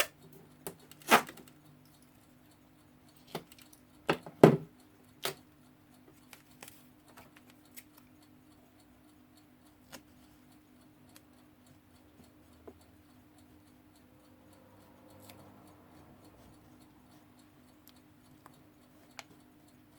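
Handling noises from taping the clock's glass: a few sharp clicks and knocks in the first five seconds, the loudest about four and a half seconds in, then sparse faint ticks over a steady low hum.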